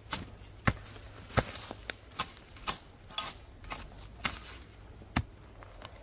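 A small hand digging tool chopping into grassy soil, about ten sharp strikes at an uneven pace of roughly one every half second, digging out the spot where a metal detector signalled strongly.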